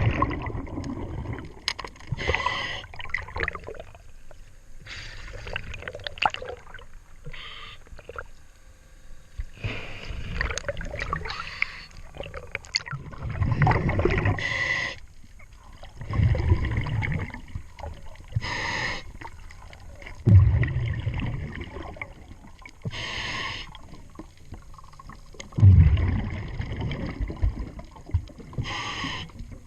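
A diver breathing through a regulator underwater: a hissing inhalation every few seconds alternating with the low rumble of exhaled bubbles, with scattered small knocks in between.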